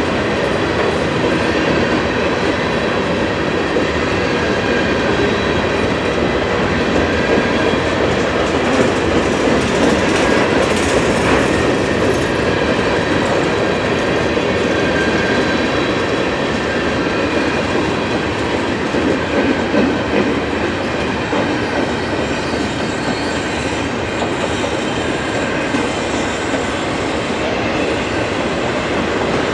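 Long freight train's cars rolling past, a steady, continuous rumble and rattle of steel wheels on rail with a faint high wheel squeal.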